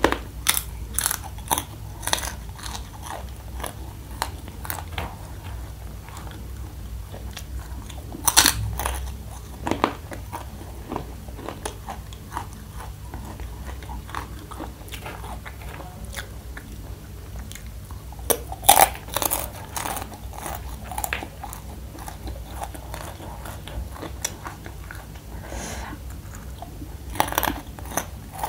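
Close-miked chewing of crunchy fried spicy macaroni snack, with sharp crunches coming in clusters: several in the first few seconds, a loud one around eight seconds, a run around 18–20 seconds and more near the end, over a faint steady low hum.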